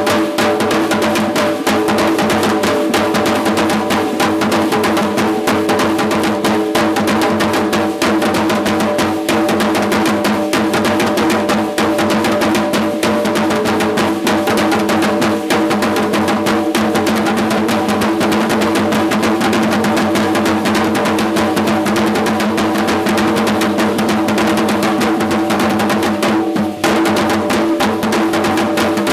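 Aztec danza drumming: a fast, steady drum beat with a steady held tone underneath, briefly breaking off near the end.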